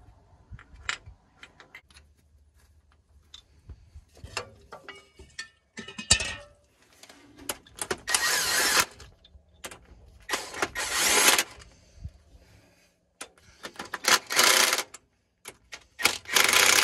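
An aerosol can of PB Blaster penetrating oil is sprayed onto the stuck injectors of a Detroit Diesel 6-71 in four loud hissing bursts, each about a second long. Before the spraying there are light metallic clicks and taps of hand tools on the injector.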